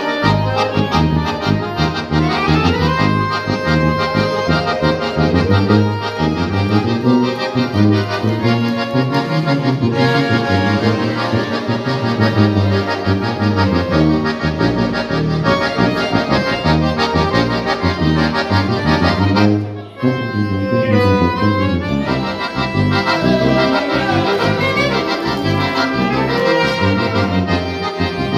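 An accordion-and-brass ensemble playing: an accordion leads the melody over trumpets and a tuba. There is a brief break just before twenty seconds in, after which the playing resumes.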